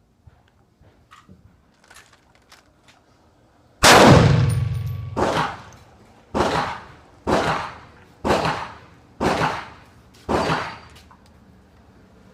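Seven gunshots fired about one a second, the first the loudest, each ringing out briefly; faint clicks of gun handling come before them.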